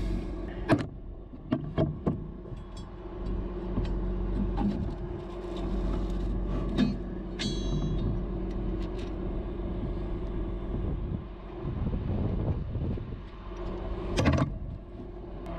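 Bucket truck's engine running steadily with a low drone, overlaid by scattered sharp clicks and knocks of hardware and tools handled against the bucket, and one short high squeak about halfway through.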